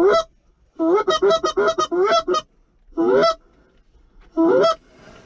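Loud goose honking in short runs. There is one honk, then a quick burst of about six, then two more single honks. Each note rises sharply in pitch.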